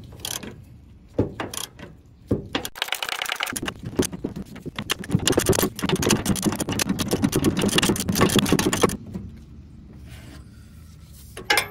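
Socket ratchet working the pitman arm nut loose on a steering box. There are a few separate metal clinks, then several seconds of rapid, continuous ratchet clicking and rattling of the tool on the nut.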